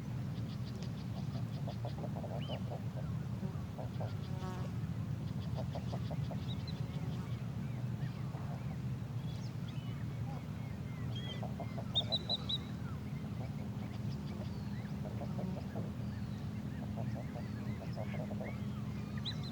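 Several birds calling: repeated short series of rapid, honking low notes, with high-pitched trills and chirps scattered throughout. A steady low rumble runs underneath.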